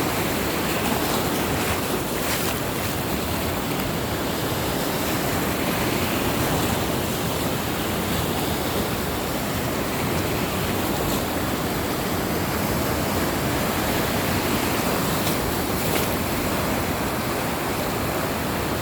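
Waves of the Caspian Sea washing onto the shore: a steady, unbroken surf noise.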